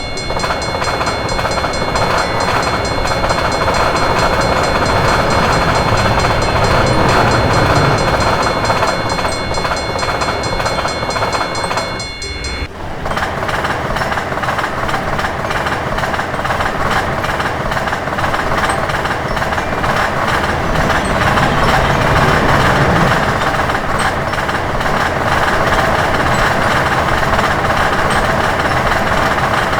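A train passing at a railroad crossing, a continuous rumble and rail noise. For about the first twelve seconds a steady high chord of tones sits over it, then cuts off suddenly.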